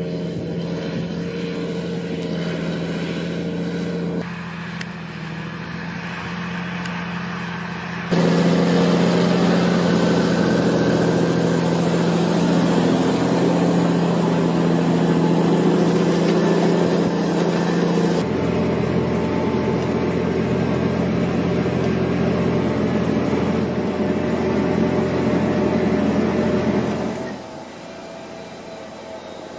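Engines of farm machines running steadily, in a series of clips whose sound changes abruptly every few seconds.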